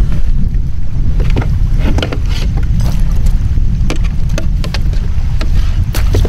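Wind rumbling steadily on the microphone, with a scatter of small splashes and sloshes of water as a person in the water beside a kayak moves a paddle with an inflated paddle float.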